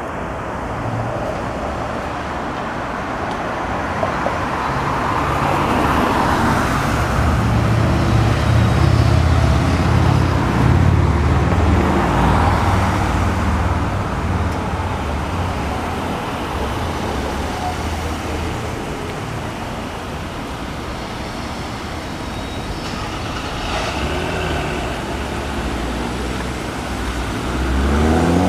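Steady city road traffic noise, with a deeper rumble of passing vehicles swelling for several seconds in the middle. A rising whine begins right at the end.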